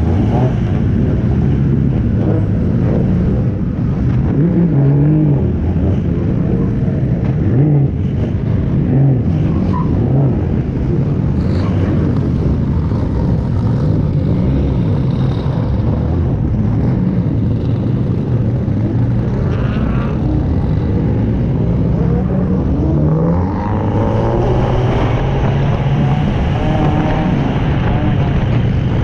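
Drift car's engine running at low revs as it rolls along, heard close up from a camera on its bonnet, the pitch wavering with light throttle. About 23 seconds in, the revs climb as it pulls away.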